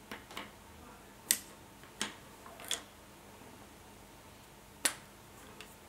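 Plastic felt-tip markers handled on a wooden table: a few sharp, separate clicks spread a second or so apart.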